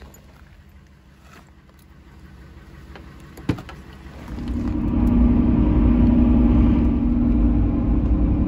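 Steady low engine and road drone inside a truck cab while driving, starting about four seconds in. Before it comes a quieter stretch with a single sharp knock.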